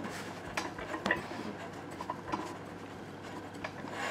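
Hands pressing and gathering soft scone dough in a glass mixing bowl, with a few light, irregular taps and knocks against the glass.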